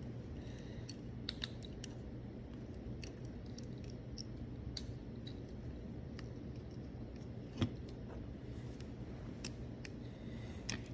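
Sporadic light clicks and taps of small plastic controller parts being handled while a replacement spring is worked into an Xbox One controller's right trigger, with one sharper click about seven and a half seconds in. A steady low hum runs underneath.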